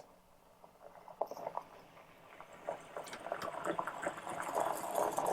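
Flathead screwdriver loosening the screws of a metal knockout cable clamp: a run of small clicks and scrapes that grows louder over the last few seconds.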